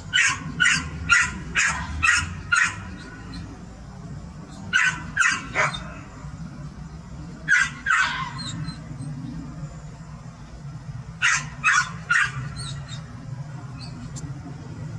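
Sharp, high-pitched canine barks in runs, about two a second: six in a row at the start, then groups of three, two and three with pauses between. A steady low hum lies underneath.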